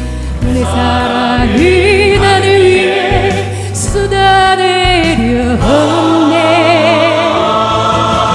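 Music: classical-style singing with wide vibrato, held notes sliding between pitches, over an accompaniment of sustained low notes.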